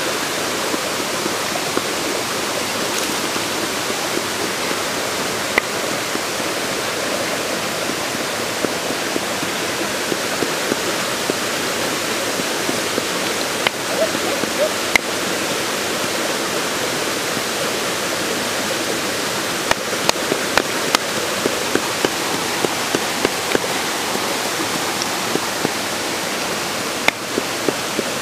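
Steady rushing of a nearby waterfall. Scattered sharp knocks cut through it: a few around halfway, where a bamboo pestle pounds in a small bowl, and a run of them later from knife work on a wooden board.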